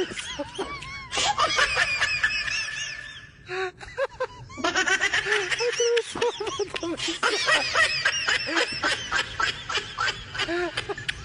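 High-pitched laughing in quick, repeated hoots, with a short lull about three and a half seconds in.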